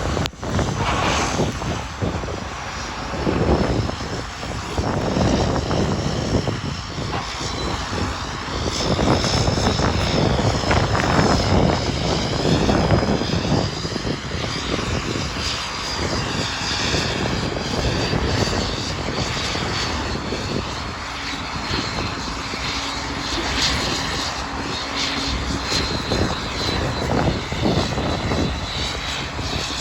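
Classic Caterpillar D8 crawler tractor's diesel engine running hard under load as it pulls a 435G scraper box stripping soil. The sound swells and eases repeatedly, with a faint high whine above it.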